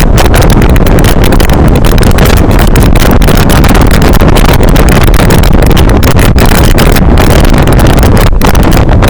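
Heavy wind buffeting the microphone while riding on the roof of a moving bus, a loud, continuous, distorted rush with a deep rumble underneath.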